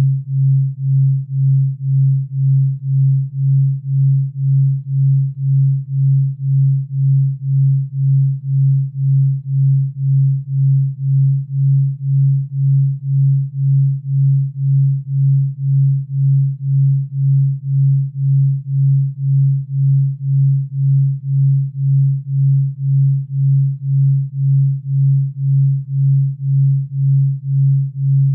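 A low, pure sine tone that swells and fades evenly about twice a second. This is a delta-wave pulsing tone made for sleep and recovery.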